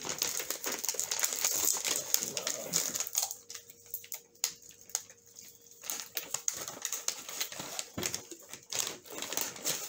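Water poured from a plastic bottle into a self-heating meal pouch, filling it to the line to start the heater inside, with crinkling and rustling of the plastic and foil food packaging. The crinkling is densest in the first few seconds and then thins to scattered clicks.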